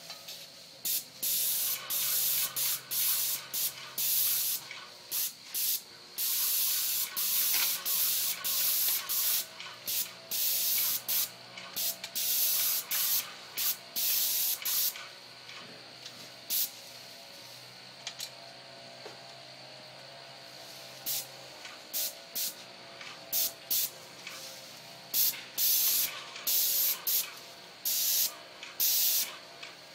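Paint sprayer spraying exterior brick: the gun's hiss comes in many separate bursts as the trigger is pulled and released, some held for a few seconds and many short, with a faint low hum underneath.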